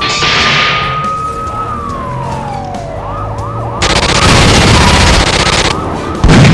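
Police siren wailing: one long rising then falling sweep, then quicker repeating yelps. About four seconds in, a loud rushing noise runs for two seconds, and a heavy thump comes near the end.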